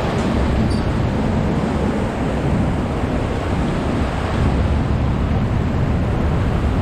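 Steady rushing of churning water welling up from a hydroelectric dam's turbine outflow, with a deep low rumble underneath; the turbines have just been started up.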